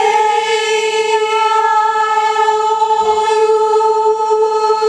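A choir section singing one long held note in unison, steady in pitch, as a voice-part sound check.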